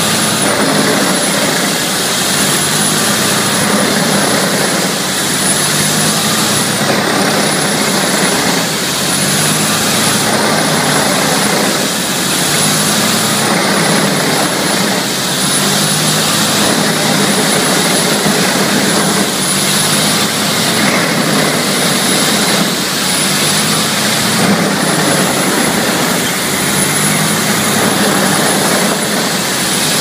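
Tractor-driven wood chipper running and chipping logs, a steady loud roar with a high whine that dips briefly now and then as the wood is taken in.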